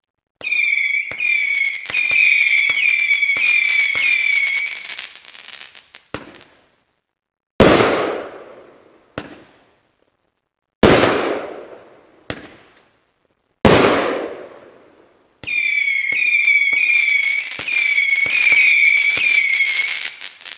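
Winda "Noise Complaint" 30-shot firework cake firing. A volley of loud whistles with sharp reports lasts about five seconds. Then come three heavy aerial shell breaks about three seconds apart, each with a long fading tail and a smaller pop after it. A second volley of whistles and reports starts near the end.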